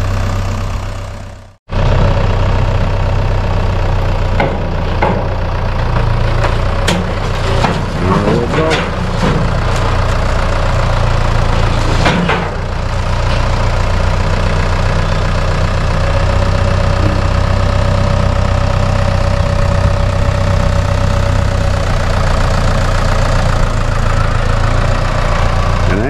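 Diesel engine of a farm tractor with a front loader running steadily, with a few clanks and knocks around the middle.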